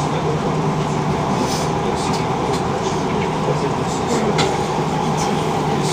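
Passenger train running at speed, heard from inside the carriage: a steady rumble and hum with a few short clicks.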